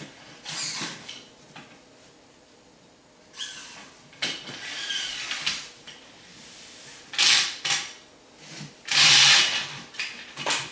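Drive belt being pulled and slid through a track's channel. It makes a series of short scraping rubs, the loudest about nine seconds in.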